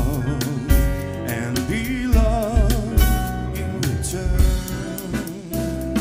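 Live jazz band playing a slow ballad: grand piano, double bass, guitar and drum kit, with a lead melody line sung or played with heavy vibrato over the top and regular low drum beats.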